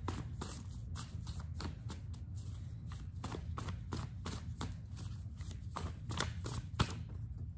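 A deck of oracle cards being shuffled by hand: quick, irregular flicks and slaps of the cards, over a low steady hum.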